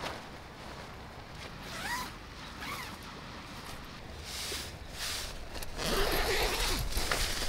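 Zipper and nylon fabric of an orange pop-up dome tent's door flap being worked: scratchy zipping and rustling, loudest in the second half.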